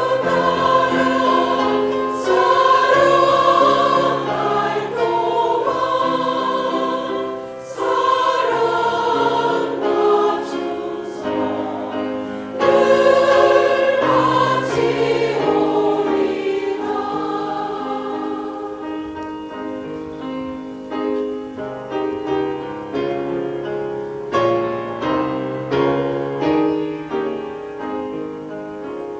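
A choir singing a sacred, gospel-style piece in long held phrases, with brief breaths between phrases, growing quieter in the second half.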